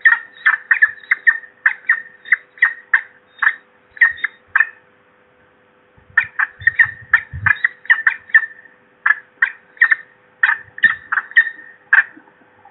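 Peregrine falcon calling in fast repeated notes, about three a second, in two runs with a pause of about a second and a half between them. A few faint low thumps near the start of the second run.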